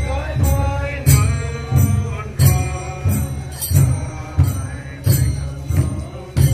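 Crowd of marchers singing a Christmas carol together over a steady drum beat, about three beats every two seconds, each beat with a bright jingling crash on top.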